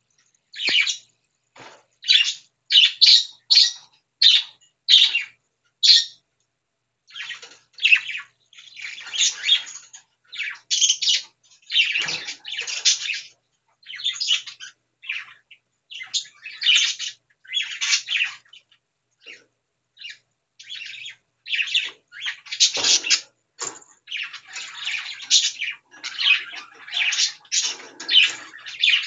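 Two young pet birds calling in short, harsh squawks and chirps, one after another in quick runs with brief gaps.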